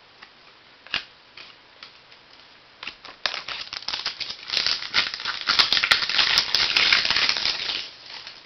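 Trading cards being handled and flicked through in the hands. A few separate clicks come first, then from about three seconds in a dense run of rapid card clicks and rustling that stops near the end.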